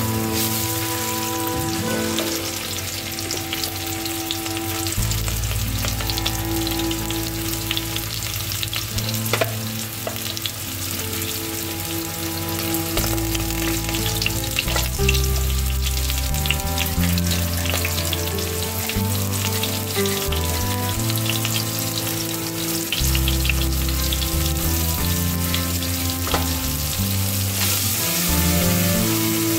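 Tomato paste sizzling in hot oil in a pot while a plastic spoon stirs it, scraping and tapping the pan now and then. Background music with sustained notes plays under it.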